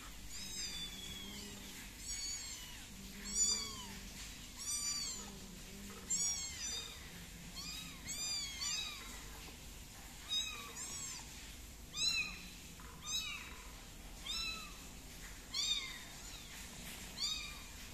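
Very young tabby kitten mewing over and over: short, thin, high-pitched cries, each rising and falling, about one every second or so.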